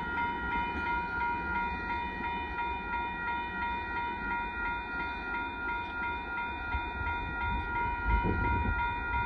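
Railroad crossing warning bell ringing in a rapid, even pattern over the low rumble of a loaded freight train of rock hopper cars rolling through the crossing. The rumble swells near the end.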